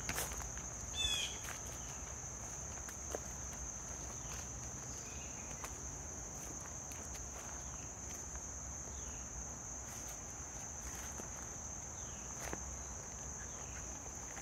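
Steady, high-pitched trilling of insects in late-summer woods, unbroken throughout, with a few light footfalls on leaf litter.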